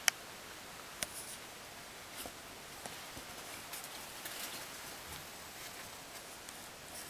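Steady low hiss with a sharp click right at the start, another about a second in, and scattered faint clicks and rustles: handling noise from a handheld camera being moved around.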